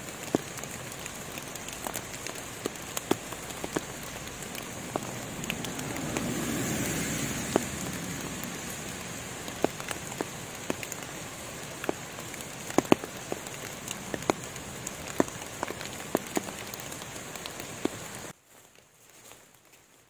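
Steady rain in a forest: an even hiss with frequent sharp drips tapping, swelling louder for a couple of seconds about a third of the way in, then cutting off abruptly near the end.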